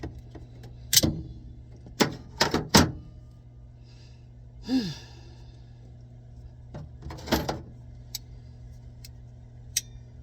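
Several sharp knocks and thuds, a few in quick succession early on and one more later, with a brief falling squeak near the middle, over a steady low hum.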